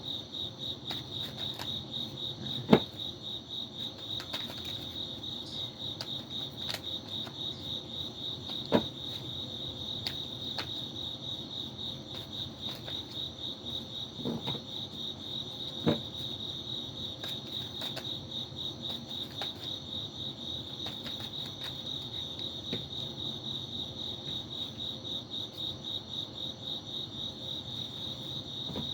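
Crickets chirping steadily in a fast, pulsing, high-pitched trill, with a few sharp taps or clicks over it.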